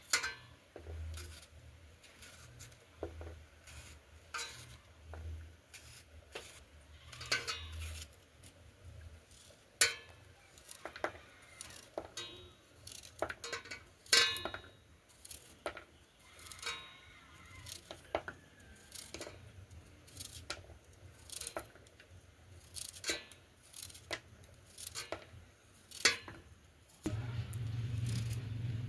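Kitchenware being handled while cooking: irregular sharp clicks, knocks and clinks of dishes and utensils, some with a short ring. A steady low hum starts near the end.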